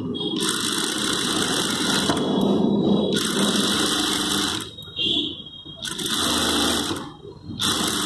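Industrial single-needle lockstitch sewing machine set to its longest stitch length, sewing a temporary basting row along a folded sleeve edge. It runs steadily for about four and a half seconds, then stops and starts again in three shorter runs with brief pauses between.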